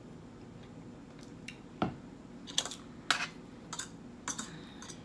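Low room noise, then a knock about two seconds in as a plastic cup is set down on the table, followed by a run of short sharp clicks and taps of utensils on a metal serving platter.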